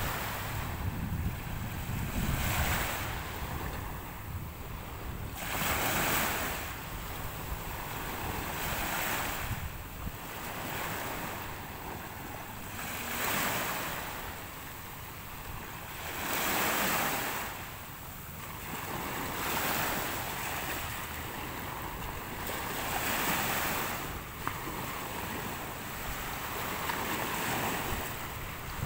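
Small sea waves breaking and washing up the shore, a fresh wash of surf every three to four seconds. Wind rumbles on the microphone in the first part.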